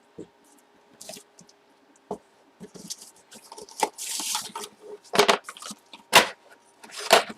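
Hands handling an autographed baseball and its packaging: scattered clicks and crackles, a brief rustle about four seconds in, then three sharp knocks in the last couple of seconds.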